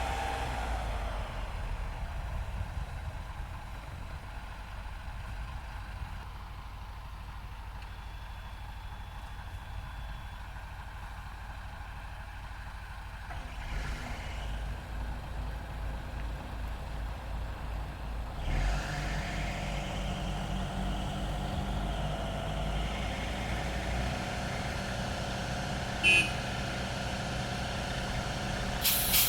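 Heavy diesel recovery machinery running at low revs, picking up to a louder, steadier load about two-thirds of the way through, with short hisses of air near the end.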